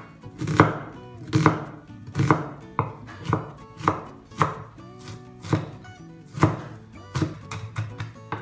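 Large kitchen knife dicing an onion on a wooden cutting board: a dozen or so separate chops at an uneven pace, about one to two a second.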